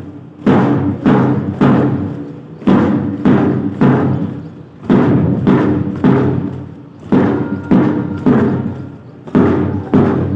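Marching drum beat: deep, ringing drum strikes about half a second apart, falling in groups of three with a short pause between groups, keeping time for marchers.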